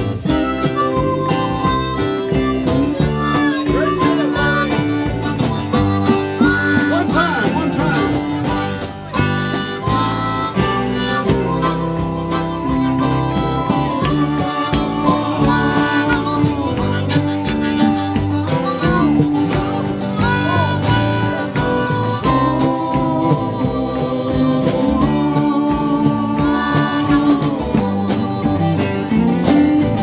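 A harmonica solo with bending notes over a live band's strummed acoustic guitar, electric guitar and bass.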